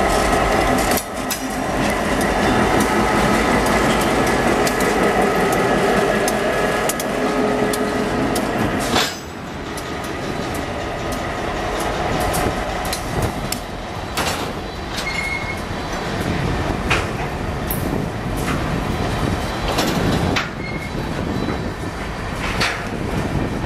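SD-M diesel locomotive IBCX 814 running past at close range, its engine note steady for the first nine seconds or so. Then loaded covered hopper cars rolling by, their wheels clicking over the rail joints, with a couple of short high squeaks.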